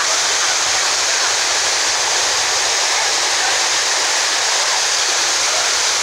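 Waterfall pouring onto rocks and into a pool: a steady, loud rush of falling water.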